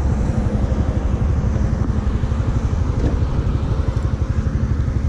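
Honda Dash 125's single-cylinder four-stroke engine idling, a steady fast low putter.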